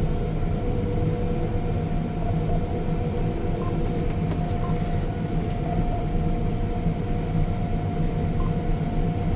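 John Deere S770 combine running steadily as heard from inside its cab: a constant low drone with a thin, steady whine above it.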